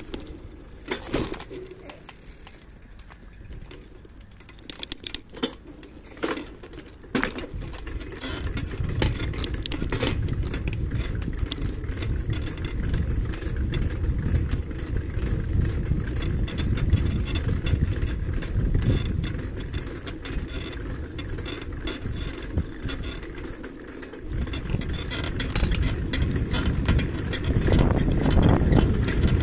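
Wind rushing over a handlebar-mounted microphone and low rumble of tyres on the road while riding, with scattered rattles and knocks in the first few seconds. The rumble grows louder after a few seconds, drops briefly near the end, then comes back.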